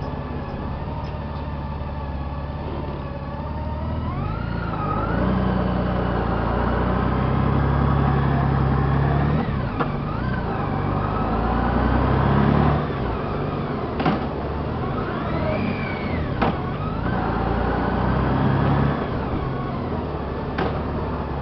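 Honda GL1800 Gold Wing's flat-six engine running under load up a steep grade, its note rising and falling as the throttle changes. The engine grows louder for several seconds before easing, and a few sharp clicks come near the end.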